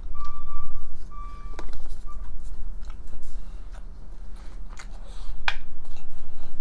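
Clicks and handling noises as a spoon scoops cheese dip from a jar onto tacos, over a steady low hum. A repeated high beep sounds in short pulses and stops about two seconds in.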